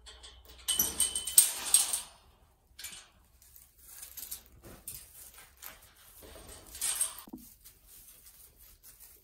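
Sheep pen noises as a ewe and her newborn lambs move about in the straw: rustling and knocking, loudest in a clatter about a second in and again around seven seconds.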